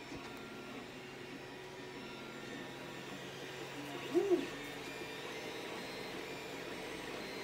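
FDM 3D printer running: a steady whirr of stepper motors and cooling fans with a faint hiss. About four seconds in comes a short, louder whine that rises and falls.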